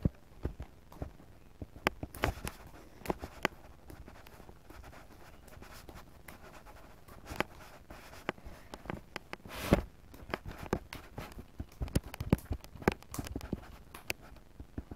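Handling noise as the camera is moved about: scattered short knocks, taps and rustles at irregular intervals. The loudest knock comes a little before ten seconds in.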